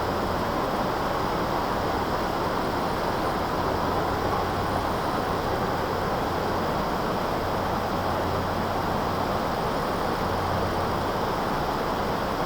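Steady rushing roar of water pouring over a river dam, an even noise that does not change.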